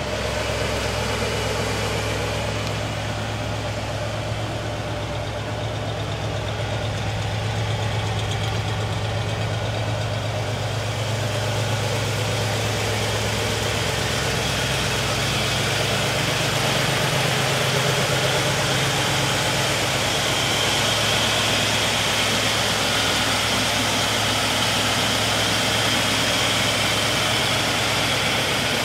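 1972 Buick Riviera's 455 cubic-inch V8 idling steadily.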